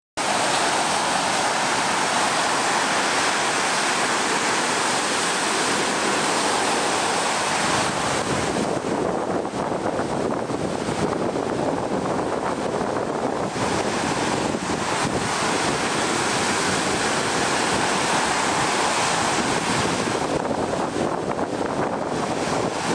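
Ocean surf breaking and washing up a sandy beach: a steady rushing hiss that eases off twice and swells again as the waves run in and draw back.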